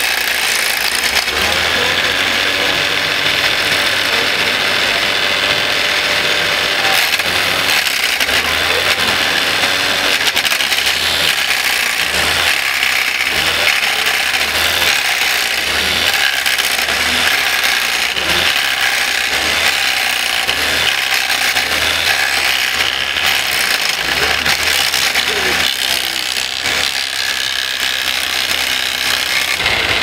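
Working model wood chipper on an RC truck running as branches are fed into it: a steady mechanical whirring and rattling with a thin whine over it, and a low pulse about once a second through the middle stretch.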